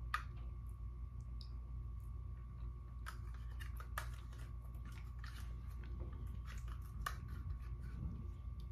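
A person eating with a metal spoon from a small cup: chewing and mouth sounds, with a few sharp clicks of the spoon against the cup, over a steady low hum.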